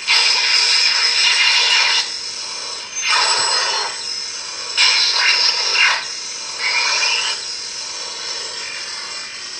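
NecroVolt lightsaber sound font playing its additional effects, such as blaster and force sounds, over the blade's steady hum. There are four loud noisy electric effect sounds: a long one of about two seconds at the start, then three shorter ones about a second apart.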